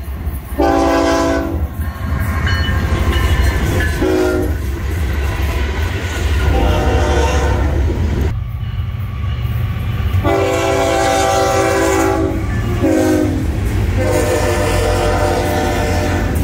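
Florida East Coast Railway diesel locomotives sounding their air horns, a chord, in two series of long and short blasts, over the low rumble of the passing freight train.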